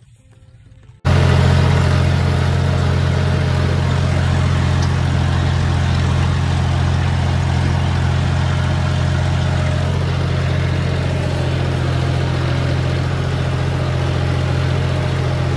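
Tractor engine running loud and steady at an even speed, close to the microphone, cutting in abruptly about a second in.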